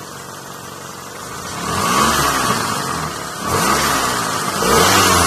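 1996 Honda Accord LX's F22B2 2.2-litre four-cylinder engine on its stock intake, idling and then revved three times, each rev rising in pitch and falling back, the third still up near the end.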